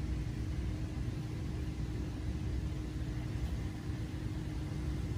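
Steady fan noise: a constant low rumble with a faint, even hum underneath.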